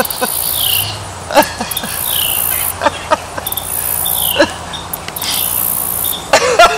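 High-pitched insect trilling in pulses about a second long, with a bird repeating a short down-slurred call about every two seconds and other short chirps.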